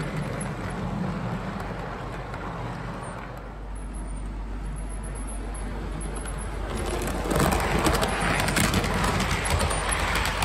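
Model train running on the layout's track: a steady rolling rumble with a low hum, then from about seven seconds in a louder rattle of fast wheel clicks as coaches pass close by.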